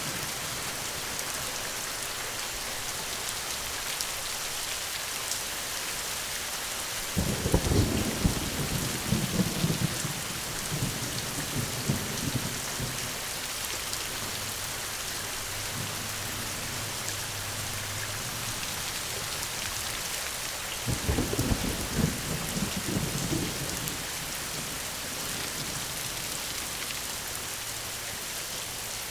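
Steady rain falling, with two rolls of thunder rumbling low, the first about a quarter of the way in and the second about two thirds of the way in, each lasting a few seconds.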